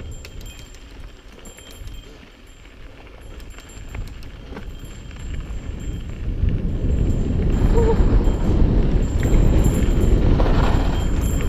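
Wind buffeting the microphone and tyre rumble from a mountain bike descending a dirt trail, with scattered light clicks and rattles early on. The rumble grows much louder about six seconds in as the bike picks up speed.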